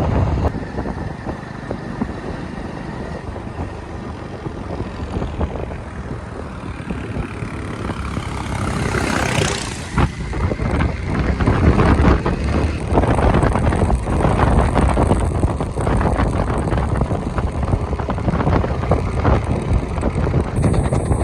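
Running vehicle noise with wind buffeting the microphone. The sound grows rougher and louder about halfway through.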